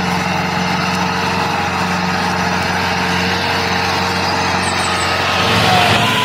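Small motor of a mini tractor running steadily with a constant hum; its note shifts about five seconds in.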